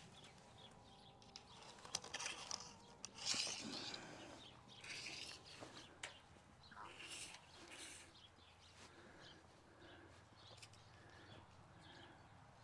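Quiet outdoor sound: a few rustles and footsteps on dry grass, loudest in the first few seconds, with faint bird calls repeating in the background.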